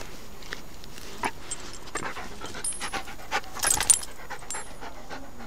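Siberian husky panting while it rolls and scrambles on grass, with scattered short rustles and clicks and a louder cluster of them just before four seconds in.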